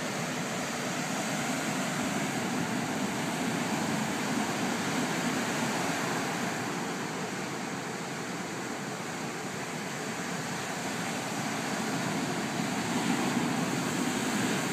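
Ocean surf heard from above the beach: a steady wash of breaking waves that swells a few seconds in and again near the end.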